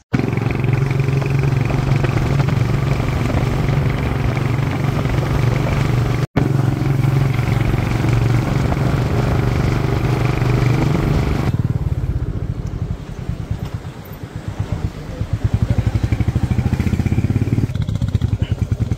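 Motorcycle engine running steadily under way. About twelve seconds in it drops to a quieter, pulsing putter, then grows louder again.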